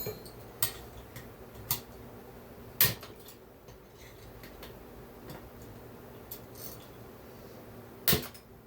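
Hand tools and small metal chainsaw parts being handled on a workbench: a few sharp clicks and clinks, the loudest about three seconds in and another near the end, with quiet handling between.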